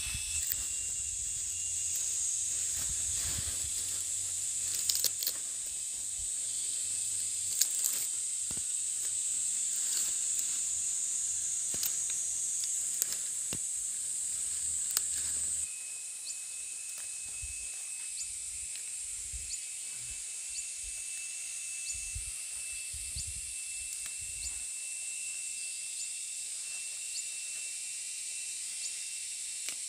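Steady high-pitched hiss with scattered light clicks and taps. About halfway through the low rumble drops away and a thin steady high tone joins the hiss.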